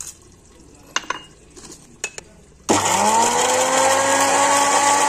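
Electric mixer grinder with a small glass jar grinding whole spices (mace, nutmeg, green and black cardamom) to powder. A few knocks as the jar is set on the base, then about two and a half seconds in the motor starts, its whine climbing quickly before it runs steadily at full speed.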